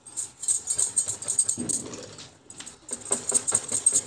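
Wire whisk beating thin cake batter in a glass bowl: fast, rapid clicks of the metal wires against the glass, with a short pause about two and a half seconds in.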